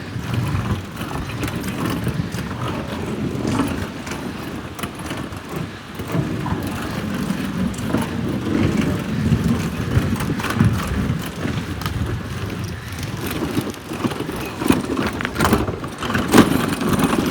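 A loaded pull-along trolley's small wheels rolling over rough ground: a continuous rumble with many small rattles and knocks. The trolley has small wheels, not suited to off-road ground.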